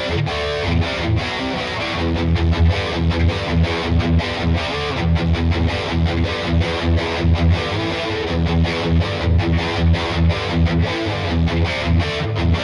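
Squier California Fat Strat electric guitar played through distortion: picked chords and riffs with a steady, regular rhythm of pick attacks.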